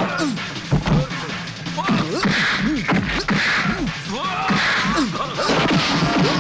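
Fight-scene sound effects: punches, hits and crashes over background music, with short sweeping and hissing effects.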